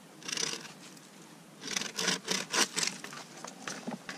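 Bow saw cutting through a tree branch: one rasping stroke, a pause, then a run of about five quick back-and-forth strokes.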